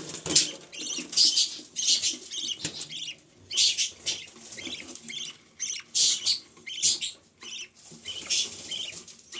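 Budgerigars giving repeated short, high-pitched cheeps in clusters with brief pauses.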